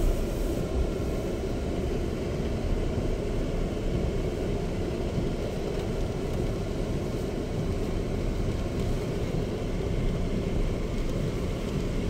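Steady low road noise heard inside the cabin of a Chery Tiggo 7 Pro driving on a wet road: tyre and engine rumble with no distinct knocks or events.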